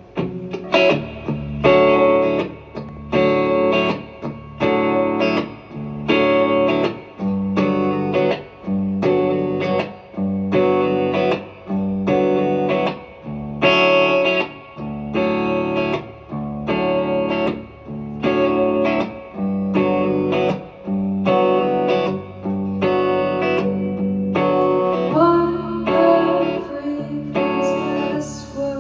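Guitar chords strummed in a steady rhythm as the instrumental opening of a song played live, about one chord a second with short breaks between them.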